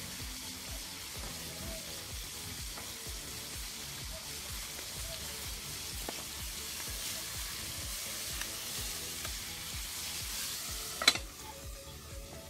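Chicken deep-frying in hot oil in a heavy pot: a steady sizzle. About eleven seconds in, a metal lid is set on the pot with one sharp clank, and the sizzle turns quieter and muffled.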